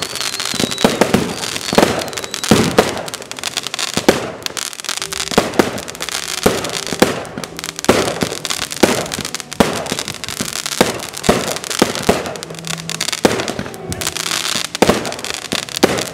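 Fireworks bursting in quick succession: a steady run of sharp bangs, several much louder than the rest.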